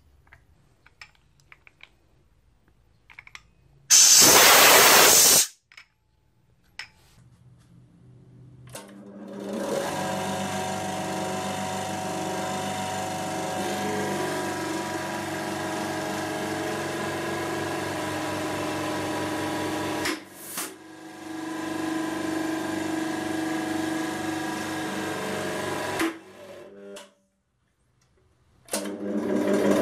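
A 100-ton hydraulic press's pump motor running steadily with a machine hum, crushing a steel gas cylinder; it stops briefly about two-thirds of the way in, cuts out shortly before the end and starts again. Earlier, about four seconds in, a short loud hiss lasting about a second.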